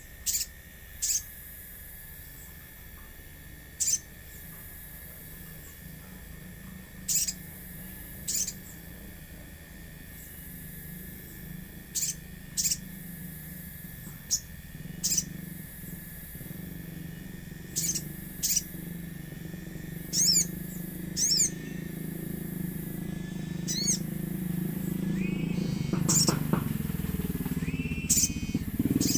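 Sogon bird calls: short, sharp high chirps every second or two, some in pairs, with a couple of quick wavering trills a little past two-thirds of the way through. A faint steady high tone runs underneath, and a low hum swells in the second half.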